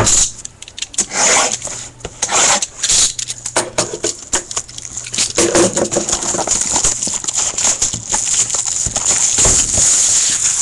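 Plastic shrink wrap on a sealed cardboard trading-card box crinkling, scraping and tearing in quick bursts as hands handle and unwrap it.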